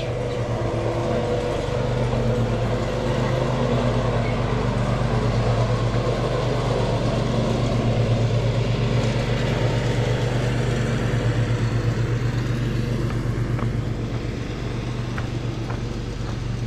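A motor running steadily: a loud, low, even drone.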